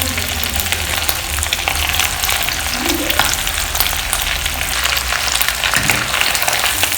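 Marinated, cornflour-coated chicken pieces deep-frying in hot oil: a steady sizzle full of fine crackling.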